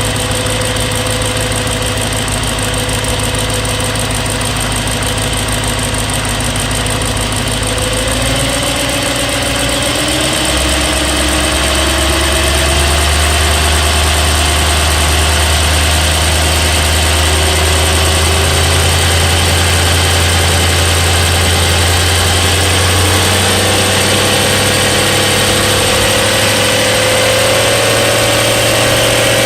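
BMW E92 M3's S65 4.0-litre V8 idling steadily, with the engine ticking noise under investigation. The owner reports the tick appeared when cold and is still present warm. The idle note rises slightly in pitch about a third of the way in, and again near the end.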